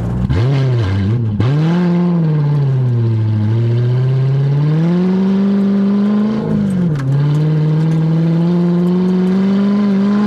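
Car engine revving up and down for the first second or so, then running through smooth pitch changes and accelerating with rising revs. Near seven seconds in the revs drop sharply, as at a gear change, and then climb again.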